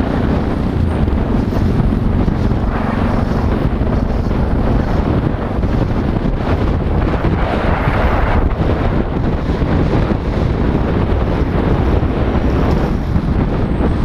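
Wind rushing over the microphone of a moving motorcycle, a steady loud rumble with the bike's engine and road noise under it.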